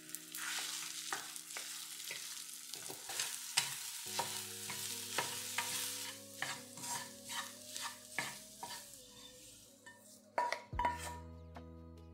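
Eggs sizzling as they fry in a nonstick wok while a wooden spatula stirs and scrapes them into scrambled eggs. In the second half the spatula taps against the pan about twice a second, and a louder knock comes near the end.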